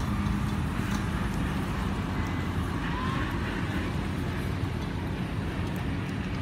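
Steady low rumbling background noise, with a brief faint squeak about three seconds in.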